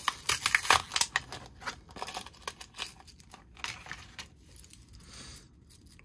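Cardboard-and-plastic blister pack being torn open by hand, crackling and crinkling: a dense run of crackles in the first second and a half, then scattered crinkles.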